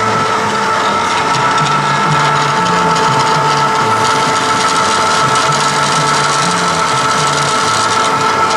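Vertical milling machine with an end mill cutting metal, a steady machining whine of several held tones over a rough, grinding cutting noise.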